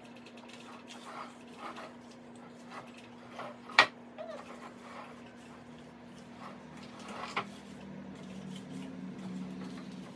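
Butter in a paper wrapper rubbed around the cups of a metal muffin tin to grease it, with a sharp clank about four seconds in and a lighter knock a few seconds later, over a steady low hum.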